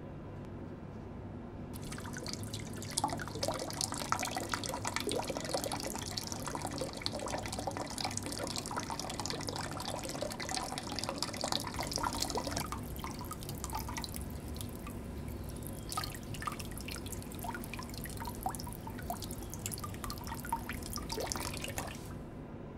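Water from the taps of a tiled washroom trough dripping and splashing in many irregular drops. It starts about two seconds in and stops near the end, over a steady low hum.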